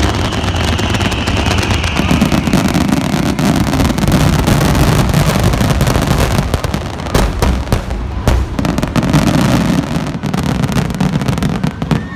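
Aerial fireworks shells bursting in rapid succession, booms overlapping into a continuous heavy rumble with many sharp reports on top.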